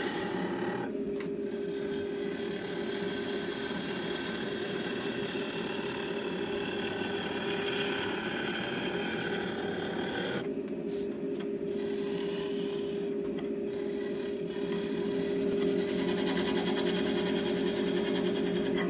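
Wood lathe running with a steady hum while a gouge cuts the spinning wood, peeling off shavings. The hiss of the cut thins out briefly about a second in and again for a few seconds past the middle.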